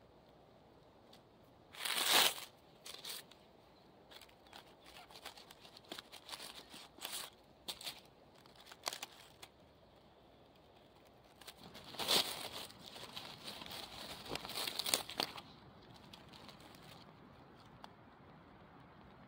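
Dry leaf litter and twigs crackling and rustling under a hand as a mushroom is grasped and pulled from the forest floor. It comes in short bursts with scattered clicks, loudest about two seconds in and again at a longer cluster later on.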